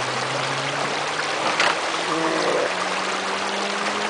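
Shallow water rushing over a low stone ledge and rocks, a steady hiss, with one brief sharp knock about one and a half seconds in.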